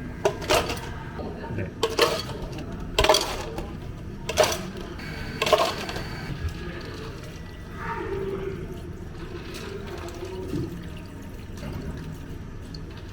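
Cafe counter work: about six sharp knocks and clinks of cups or utensils in the first six seconds, then liquid running or pouring.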